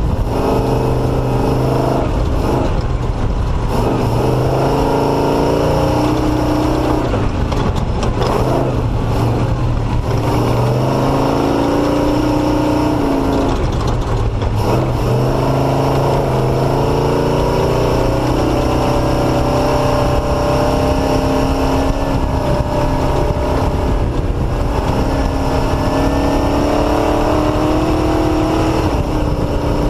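Off-road motorcycle engine running under way on a dirt two-track, its pitch climbing and dropping back again and again with the throttle.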